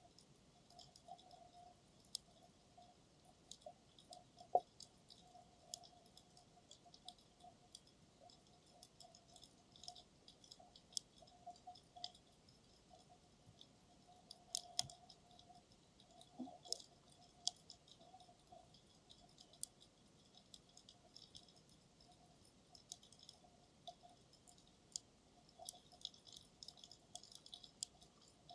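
Faint, irregular underwater crackle of scattered sharp clicks, with a louder click about four and a half seconds in and another near the middle, heard through the camera's dive case.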